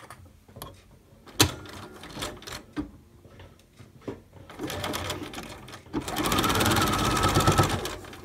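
Electric sewing machine sewing a quarter-inch seam through several layers of fabric. After a few light clicks and one sharp click, it starts slowly about halfway through, then runs fast with a rapid, even stitching patter for about two seconds and stops near the end.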